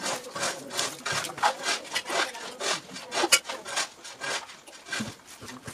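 Close-up eating sounds: fingers working rice and fried fish on a banana leaf, with chewing, in a run of short, irregular rubbing, crackling strokes about two a second.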